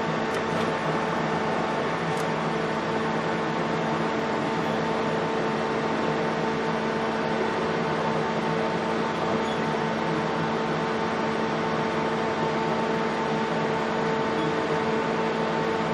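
Mazak Super QT 10 M CNC turning and milling center running with its empty three-jaw chuck turning: a steady mechanical hum with several steady tones.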